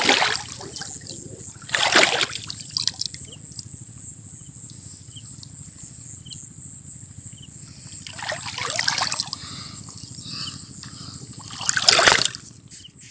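Water splashing and dripping as a nylon gill net with fish caught in it is hauled hand over hand out of a river. Four splashes, about two seconds apart at first, then one around eight seconds and the loudest near the end, with faint dripping between.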